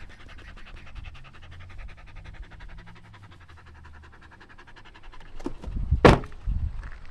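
Korean Village Dog panting quickly and evenly, tired after play. Near the end there are a few sharp knocks, the loudest about six seconds in.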